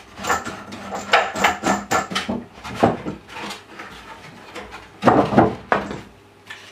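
Plywood leg being worked loose and pulled off a plywood saw-stand box: a string of wooden knocks and clatter, with the loudest cluster of knocks about five seconds in.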